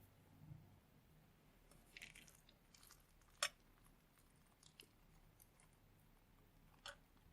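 Faint squishing and crackling of slime with Orbeez water beads being handled, with a few small sharp pops; the loudest comes about three and a half seconds in, another near the end.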